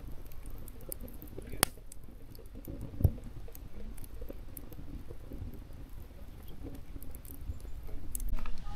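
Freshly lit kindling fire in a metal fire bowl burning over a steady low rumble, with scattered crackles; the sharpest pops come about one and a half and three seconds in.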